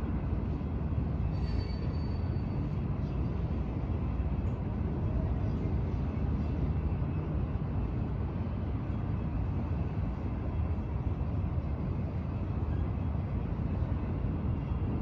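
Train running, a steady low rumble.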